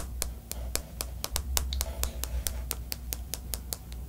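Fingernails tapping the hard, glassy sugar shell of a candied mandarin orange (tanghulu), giving rapid, irregular crisp clicks, about six or seven a second.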